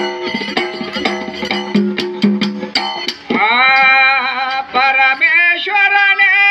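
Gigi pada folk ensemble: a plucked one-string drone and frame-drum strokes with sharp clicking percussion, then about halfway through a man's voice comes in loudly, singing long held notes over the drone.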